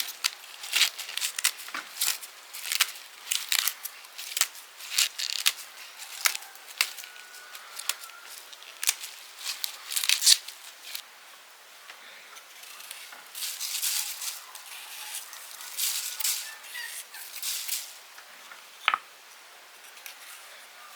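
A cooking utensil stirring and scraping in a pan: an irregular series of short, sharp scrapes and clicks, with a louder click near the end.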